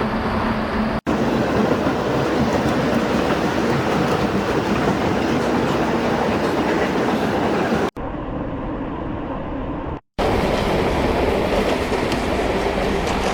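AI-generated sound effects from ElevenLabs' text-to-sound generator playing back one after another: a steady rumbling noise like a train rolling on rails with a clickety-clack. Brief silences about a second in, near eight seconds and just after ten seconds mark the change from one generated clip to the next, and the clip between about eight and ten seconds sounds duller.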